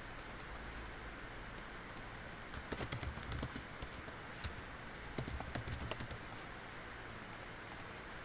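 Typing on a computer keyboard: two short bursts of key clicks, about two and a half seconds in and again about five seconds in, over a steady faint hiss.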